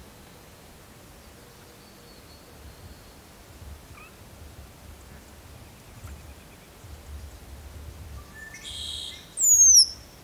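Male red-winged blackbird calling: a short, harsh buzzy call near the end, followed at once by a loud, high whistle sliding steeply down in pitch. Faint short calls come earlier.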